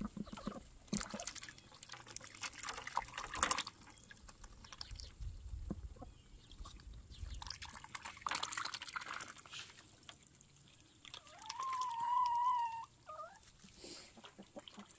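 Water from a garden hose running and splashing into a bucket, with irregular scuffing. About two-thirds of the way through, an animal gives one drawn-out call at a steady pitch, ending in a short falling note; this call is the loudest sound.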